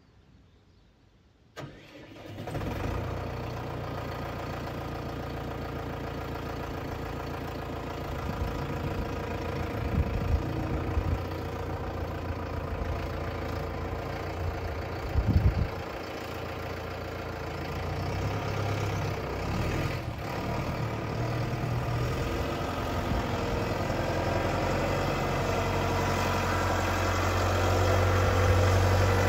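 Valtra M120 tractor's diesel engine starting about two seconds in, then running steadily. It grows louder near the end as the tractor pulls away and comes closer.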